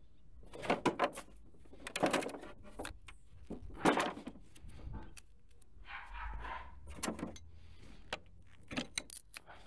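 Irregular knocks, clunks and rattles of objects being handled and set down.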